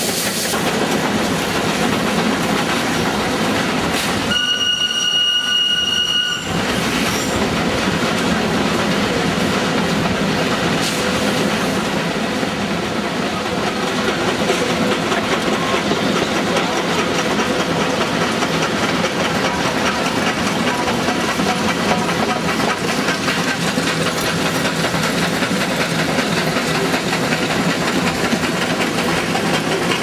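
Steam locomotive and train running on the rails with a steady rumble and clatter. About four seconds in, a whistle blows one held note for about two seconds.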